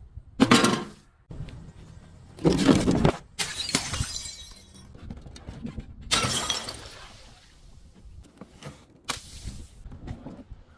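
Glass bottles breaking and shattering in a series of about five crashes, each starting sharply and dying away in under a second; the loudest come near the start and about two and a half seconds in.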